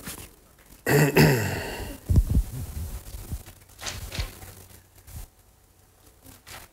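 A short sigh-like vocal sound about a second in, then a few dull low thumps and scattered faint clicks.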